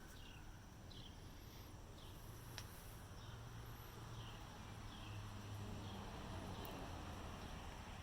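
Faint outdoor ambience: a bird repeats a short falling chirp about once a second over a steady low hum.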